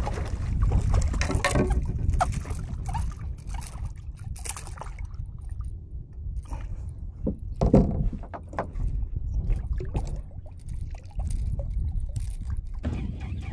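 A hooked jack thrashing and splashing at the surface beside a kayak, then water sloshing and knocks as it is held alongside and unhooked. The splashes and knocks come irregularly, the loudest about eight seconds in.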